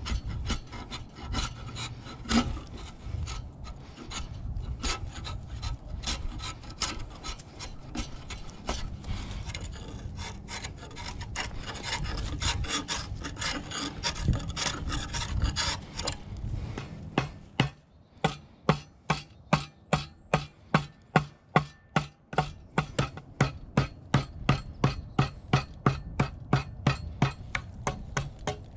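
Draw knife scraping bark off a log, stroke after stroke. The strokes are dense and uneven at first; from a little past halfway they settle into a steady rhythm of about two a second.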